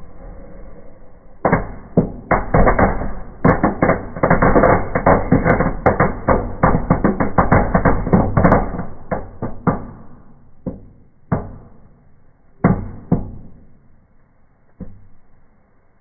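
Indoor table firework ('Knallbonbon') going off: about a second and a half in, a rapid, dense string of sharp pops and cracks starts and lasts about eight seconds. It then thins to a handful of single cracks as it dies down.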